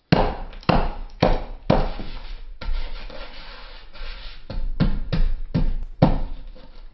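A fist pounding a tabletop again and again, crushing biscuits: about ten sharp thumps at uneven intervals, with a lull in the middle.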